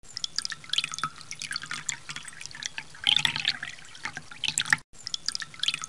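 Water drops falling into a pool of water, irregular drips and plinks, thicker and louder for a moment about three seconds in. The sound cuts out briefly near the end.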